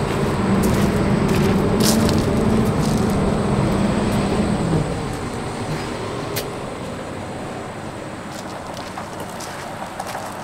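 Rollback tow truck running with a steady mechanical hum while the drag car is let down its tilted bed. The hum stops about five seconds in, leaving a fainter steady background noise.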